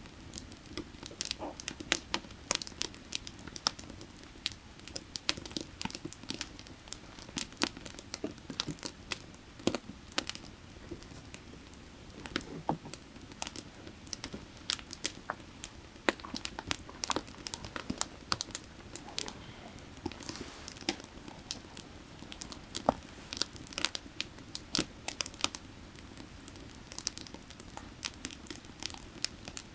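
Firewood burning, crackling and popping in frequent irregular sharp snaps, over a low steady rush of creek water.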